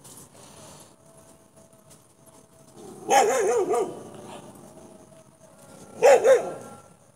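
Dogs barking in two bouts, the first about three seconds in and a shorter one about six seconds in.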